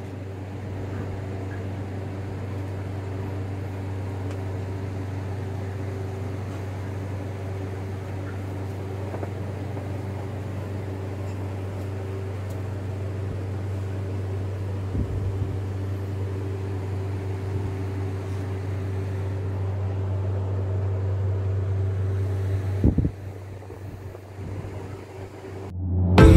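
A steady low mechanical hum with a few faint knocks. The hum drops away about twenty-three seconds in.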